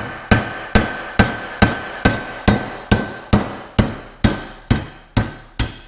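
Metal hammer striking a steel OMC bushing-removal tool in about fourteen steady blows, a little over two a second, each with a short metallic ring. The blows drive the brass shift-shaft bushing out of a 1979 Evinrude 6 hp outboard lower unit gearcase, and stop near the end.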